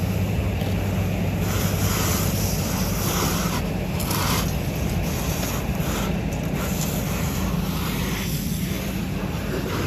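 Fire hose nozzle spraying a steady stream of water onto a burning car, a continuous rushing hiss, over a steady low drone of the fire engine running its pump.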